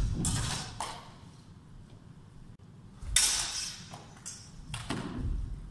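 Steel longswords clashing in sparring: sharp blade strikes with a ringing tail in a cluster at the start, a loudest clash about three seconds in, and more near the end, with low thuds of footwork underneath.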